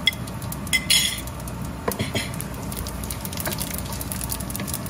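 Whole spices and cumin seeds crackling in hot oil in a pot for a tadka, with scattered sharp pops and a brief louder sizzle about a second in as the cumin goes in. A wooden spatula stirs the pot near the end.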